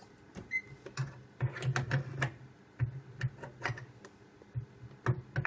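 Microwave keypad buttons pressed over and over with a utensil, a string of separate clicks with a short beep about half a second in. He is setting the cooking time in 15-second steps up to about two minutes.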